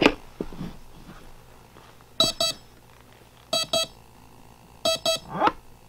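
A sharp click as the battery connector is plugged in. Then an eRC brushless speed control sounds three double beeps through its outrunner motor, about 1.3 s apart, followed by a short rising tone near the end. With the throttle at full on power-up, these beeps are its throttle-range sync (calibration) signal.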